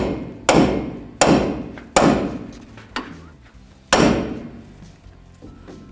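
Hammer striking a pickle fork (ball joint separator) wedged under the lower ball joint to break its tapered stud free of the steering knuckle. Sharp metal-on-metal blows about every 0.7 s, each ringing out. A lighter blow lands near three seconds in and a last hard one about four seconds in.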